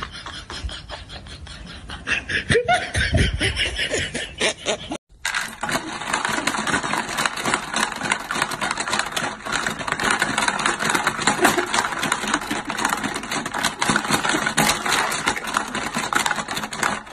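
From about five seconds in, a Hungry Hungry Hippos game's plastic hippos and levers clatter rapidly, with marbles rattling on the board, a dense, continuous clicking that lasts to the end.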